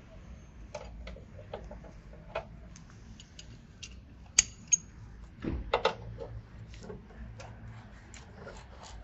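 Hand tools working on car suspension bolts, making irregular light metallic clicks and taps. About four and a half seconds in comes a sharp ringing metal clink with a smaller one just after, then a duller knock a second later.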